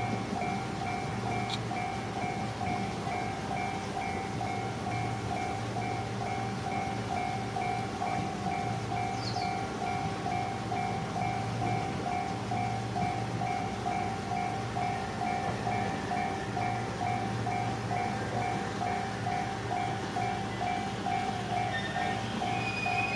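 Japanese railway level-crossing warning bell ringing in an even rhythm of about two strikes a second, signalling an approaching train; faint extra tones join in near the end.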